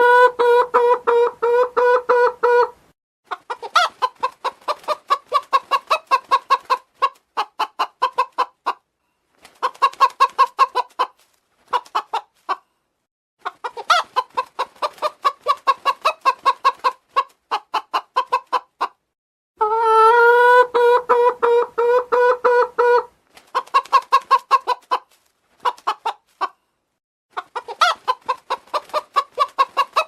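Domestic chicken clucking: quick, pitched calls several a second, in runs of a few seconds broken by short pauses.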